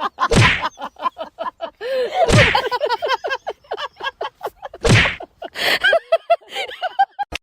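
Three loud thumps about two and a half seconds apart, amid a fast run of short high squeaks.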